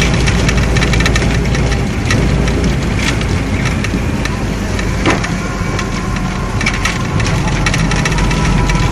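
Engine of the vehicle carrying the camera running steadily while driving, with low road rumble and one sharp click about five seconds in.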